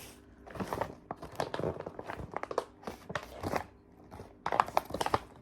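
Packaging being opened and handled, crinkling and rustling in quick clusters of crackles, with a short lull about four seconds in.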